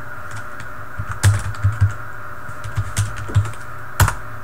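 Typing on a computer keyboard: an irregular run of key clicks starting about a second in, with one louder keystroke near the end, over a steady background hum.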